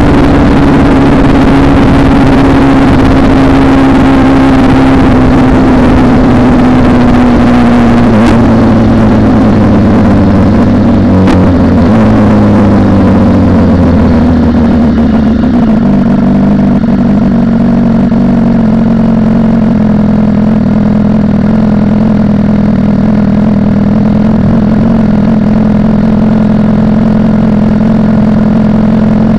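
BMW S1000RR inline-four engine running with its muffler removed, loud and unmuffled while riding. The engine note eases steadily down in pitch over about the first half, then holds at a steady pitch.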